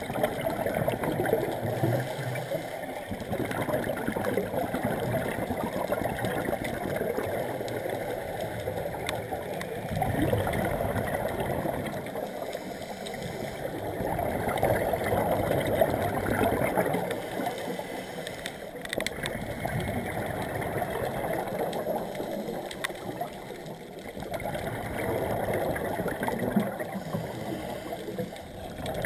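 Scuba regulator breathing underwater: exhaled bubbles gurgling and rushing past in slow swells every few seconds.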